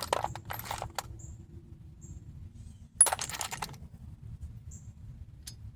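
Metal hand tools clinking and rattling, a few sharp clicks at first and a louder clatter about three seconds in.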